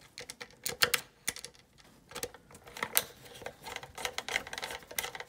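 Irregular light clicks and taps from hands handling plastic close to the microphone, a dozen or so spread unevenly, the loudest a little under a second in and about three seconds in.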